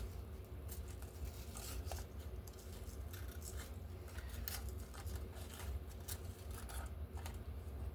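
Scissors snipping through paper in a run of short, irregular cuts, over a steady low hum.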